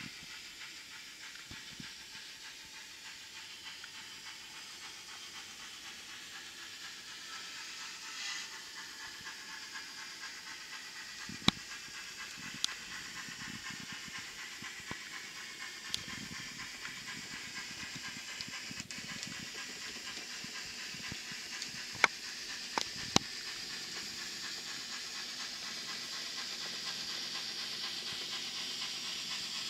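N-scale model steam locomotive and passenger cars running along the track, a steady hiss that grows louder as the train comes closer, with a few sharp clicks.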